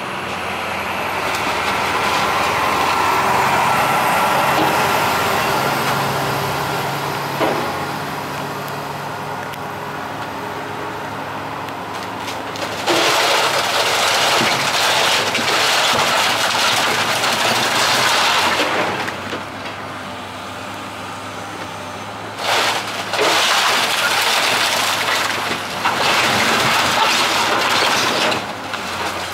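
Excavator's diesel engine running steadily under load while its bucket rips into a timber building. Two long stretches of loud crunching and splintering wood and roofing, about halfway through and again near the end.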